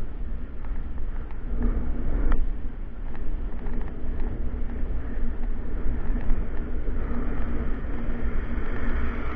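Wind rushing and buffeting on the microphone of a moving bicycle, with a steady low rumble of tyres rolling on asphalt.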